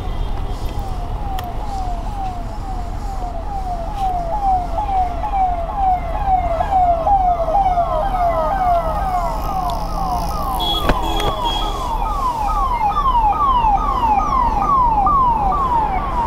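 A vehicle siren sounding as a rapid string of falling sweeps, about two and a half a second, getting louder as it approaches. A steady low rumble runs underneath.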